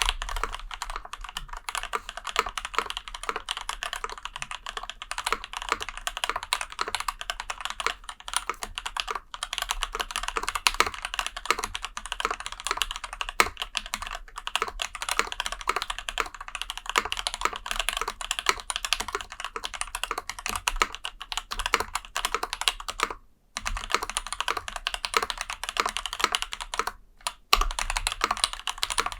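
Custom Endless-80 mechanical keyboard typed on fast and steadily. It has lubed, filmed JWK Seal 78 g switches under GMK Laser keycaps, on an aluminum plate with foam dampening. The typing has a few short pauses.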